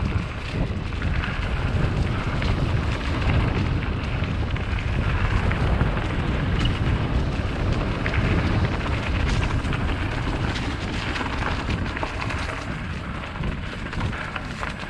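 Wind buffeting the microphone on a moving trail ride, a steady low rumble, with scattered small clicks and rattles from riding over rough dirt trail.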